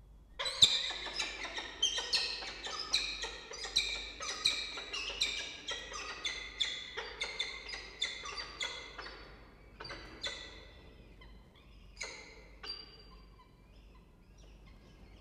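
Peregrine falcons calling in a nest box: a rapid run of repeated short, harsh calls, about two or three a second, thinning out after about nine seconds to a few single calls.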